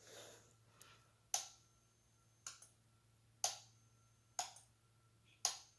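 Simplex fire alarm strobe running alone with its horn disconnected, ticking sharply each time it flashes: five ticks about a second apart, over a faint steady high tone.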